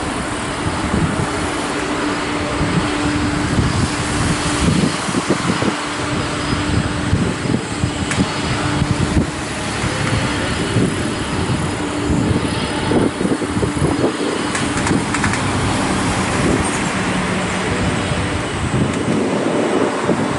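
Boeing 787 airliner's Rolls-Royce Trent 1000 turbofan engines at takeoff power: a loud, steady rush of jet noise with a held droning tone and an uneven low rumble as the aircraft rolls and climbs away.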